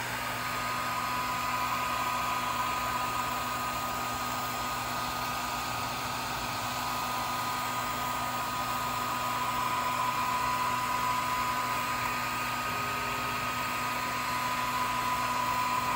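Swiitol 18-watt diode laser engraver running as its head travels over the board: a steady whirring hiss with a thin, steady whine.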